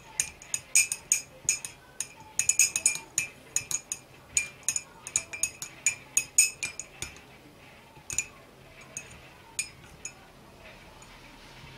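A metal teaspoon stirring in a glass mug of water with soaked frankincense, clinking rapidly against the glass as the resin is dissolved. The clinks thin out after about seven seconds and stop shortly before the end.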